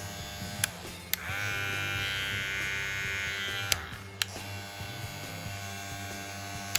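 Cordless all-metal hair clippers, a Surker K7S and a Kemei, running in turn for a noise comparison, each with a steady buzz. Switch clicks come about half a second and a second in; a louder, higher buzz then runs for about two and a half seconds, and clicks about four seconds in bring back the quieter buzz.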